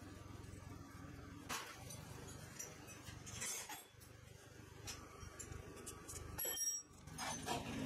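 Scattered metal clinks and taps of a wrench on bolts and a wheel being fitted onto the axle of a walk-behind tiller. One clink near the end rings briefly.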